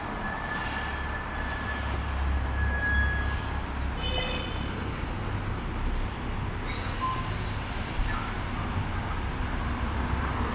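City street traffic: a steady low rumble from passing vehicles. A short high tone sounds about four seconds in, and a single sharp click comes near the end.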